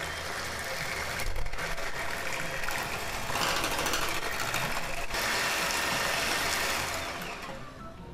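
Electric hand mixer running steadily, its beaters whisking an egg into a creamed butter, sugar and cream-cheese batter in a glass bowl. It winds down and stops near the end.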